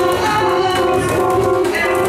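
Live band music, with saxophones and other instruments playing held melodic notes over a busy low accompaniment.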